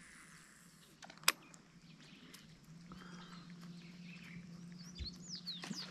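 Faint outdoor ambience: a few small, high bird chirps and a low steady hum, with one sharp click a little over a second in.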